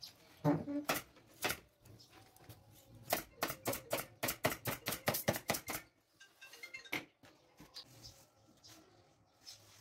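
Pneumatic upholstery staple gun firing in a rapid run of sharp clicks, about four or five a second, for a few seconds in the middle. Softer handling noise follows.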